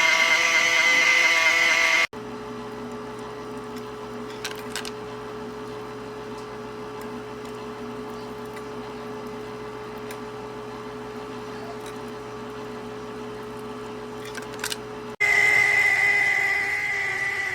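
Countertop nugget ice maker running, its motor giving a steady whine. After about two seconds it cuts to a quieter stretch of steady hum with a few light clicks, then the louder whine returns near the end.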